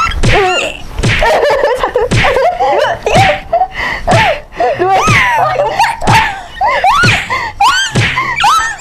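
Two young women laughing and shrieking excitedly through a hand game, with many sharp hand slaps.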